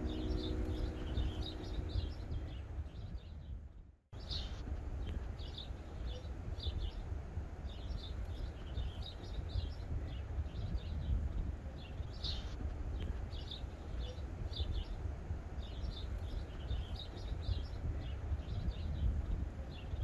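Small songbirds chirping and twittering in short repeated phrases, over a steady low outdoor rumble.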